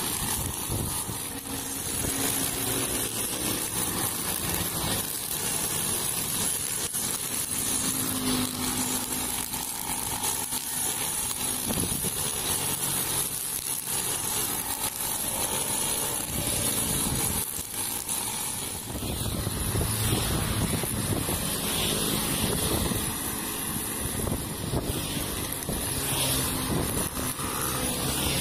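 Petrol brush cutter running steadily at working speed, its nylon line cutting grass and weeds, with motorcycles passing on the road.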